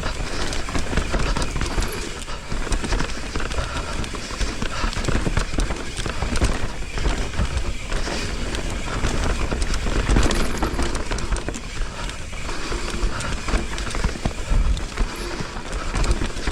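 Mountain bike descending a rough, technical dirt trail: tyres on dirt and the bike clattering and rattling over bumps, with a steady low rumble of wind on the microphone.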